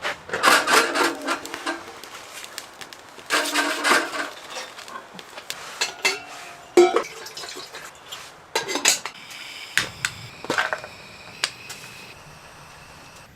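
Metal pots and utensils clattering and scraping, with short metallic rings: a dense run of clanks near the start, another about three seconds in, then scattered knocks.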